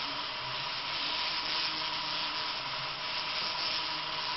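A motorised LEGO train running on plastic LEGO track, making a steady noise from its motor and rolling wheels, with faint low tones that come and go.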